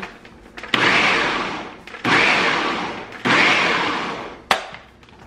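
Food processor pulsed three times in quick succession, each pulse about a second long, chopping a full bowl of sausage chunks, mushrooms and onion down. A single sharp click follows near the end.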